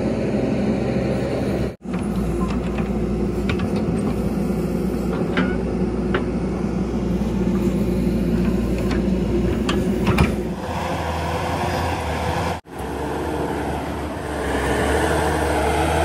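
ACE AX-124 backhoe loader's diesel engine running steadily under working load, with scattered sharp knocks and clatter as the bucket works the dirt. The sound breaks off abruptly twice, briefly, at edits.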